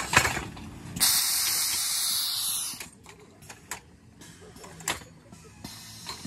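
A pneumatic Halloween prop firing: a sharp knock, then about a second later a loud burst of compressed-air hiss that lasts nearly two seconds and cuts off suddenly as the valve closes.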